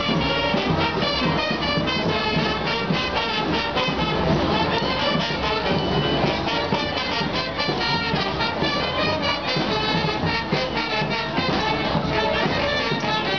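Street brass band playing, with trumpets and trombones over a steady beat.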